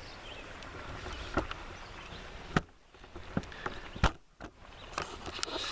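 Chicken and peppers simmering and sizzling in a steel canteen cup over a burning alcohol rope stove, with scattered sharp pops and ticks, and two brief drop-outs.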